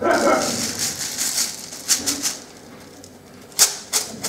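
Fenugreek seeds rattling and pouring inside a clear plastic jar as it is tipped and shaken, with a few sharp clicks of the plastic jar being handled.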